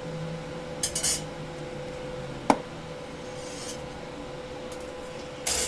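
Metal parts and tools clinking and rubbing as they are handled at a welding bench, with one sharp tap about halfway through and brief hissy bursts about a second in and near the end, over a steady hum.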